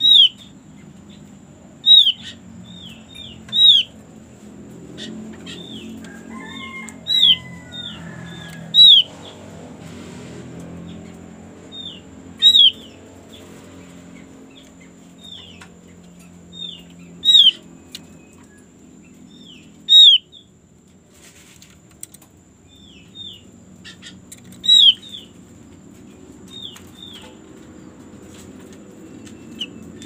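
Caged opyor songbird giving short, sharp, downward-hooked chirps, one at a time and irregularly spaced, some loud and some soft, with wing flutters as it hops about the cage.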